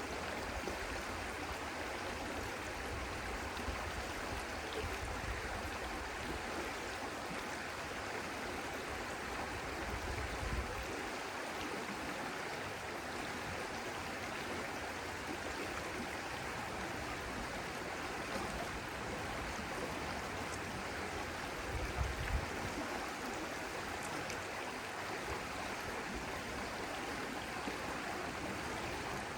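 Stream water flowing and splashing steadily, an even rushing with no pauses. Two brief low rumbles break in, one about a third of the way in and one about three quarters through.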